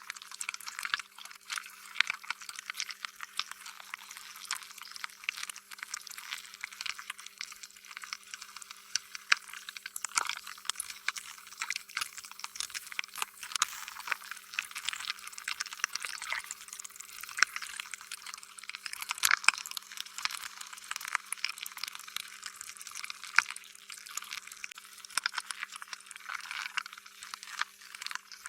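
Slime being squished: a dense, irregular run of wet clicks and pops, with a faint steady hum underneath.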